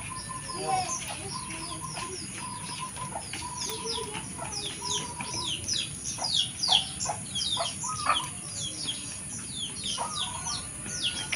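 Many small birds chirping in quick, falling notes that grow denser after about five seconds, with a chicken clucking a few times in the first half.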